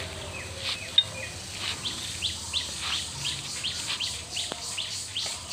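A bird calling outdoors in a quick, regular series of short chirps, about three a second, with one sharp click about a second in.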